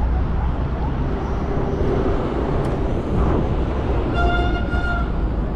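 Steady city street traffic noise, with a vehicle horn sounding for about a second around four seconds in.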